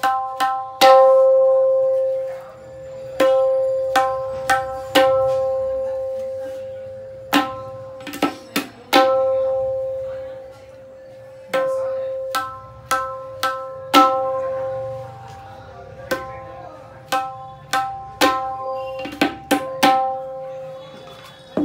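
Handmade tabla dayan (the wooden treble drum) struck with the fingers in single open strokes, some in quick pairs, each ringing out at one clear pitch and fading over a second or two. The long ringing shows off the drum's tone and sustain.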